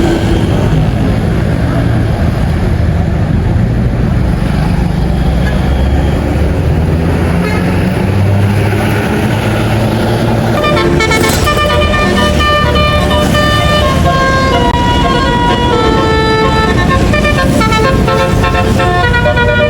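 A bus's engine runs with a low, steady rumble. From about ten seconds in, a telolet basuri musical horn plays a melody of short notes that step up and down.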